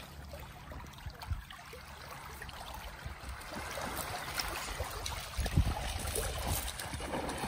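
Small waves lapping and trickling against a stony shoreline. A few louder splashes and knocks come about five and a half seconds in, as a dog runs into the shallows.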